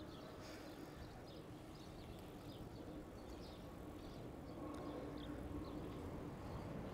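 Quiet outdoor street ambience: scattered faint bird chirps over a low, steady hum of distant traffic.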